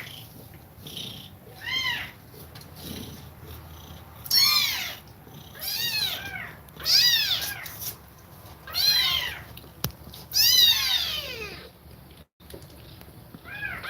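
Kittens meowing again and again: about six high mews, each rising then falling in pitch, a second or two apart. A low steady purr runs underneath.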